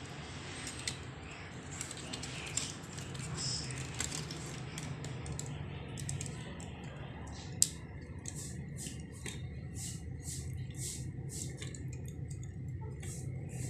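Small plastic clicks and taps as the parts and joints of an assembled Bandai plastic model figure are handled and posed, with one sharp click about halfway through. A steady low hum runs underneath.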